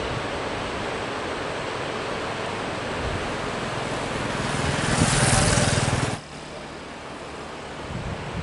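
Strong wind rushing across the microphone, a steady noise that swells into a louder gust about five seconds in and then cuts off suddenly, leaving a quieter rush.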